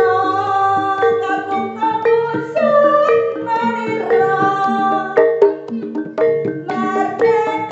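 Jaranan music: a percussion ensemble with struck drums and metallophones under a sustained, wavering melody line.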